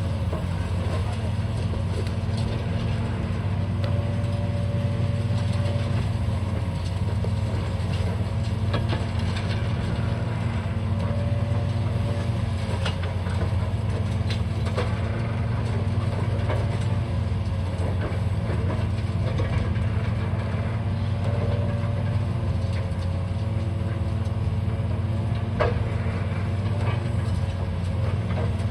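The engine of heavy demolition machinery running steadily at a constant speed, with a few light knocks.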